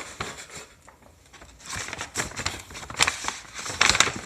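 Rustling, crinkling and irregular clicks of items being handled and rummaged out of a bag. It is sparse at first, busier from about halfway in, with a couple of sharper knocks near the end.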